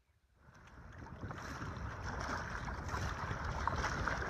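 Wind buffeting the microphone and choppy lake waves washing against a canoe, swelling in from near silence over the first two seconds.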